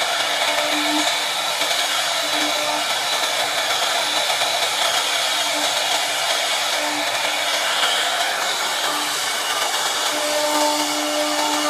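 CNC router spindle running at speed while its bit carves a scroll pattern into a wooden board: a steady whining hiss that holds level throughout.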